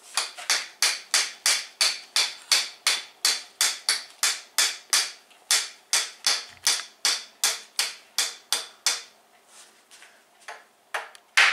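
Small hammer tapping against a wall in quick, even repeated knocks, about three a second, light and sharp with no deep thud. The knocking falters for a moment near the end, then starts again.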